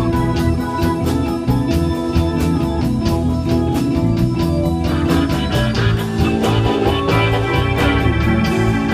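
Live band playing a slow blues in E: an organ holds sustained chords over bass and steady drum strokes. About five seconds in, a busier lead part joins above it.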